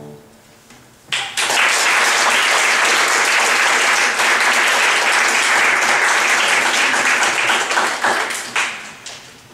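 The final chord of the piano sonata's first movement dies away on a grand piano, then after about a second an audience breaks into applause, which fades out near the end.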